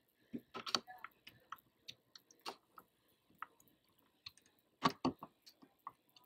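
Hand screwdriver tightening the mounting screws of an RV door-lock handle plate: faint, irregular small clicks and ticks of the tip working in the screw heads, with a couple of louder knocks about five seconds in.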